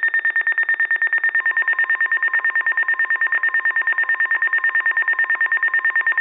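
Weather alert radio's alarm beeping rapidly and evenly, about nine high beeps a second, set off by an incoming alert. About a second and a half in, the broadcast's steady warning tone sounds faintly underneath.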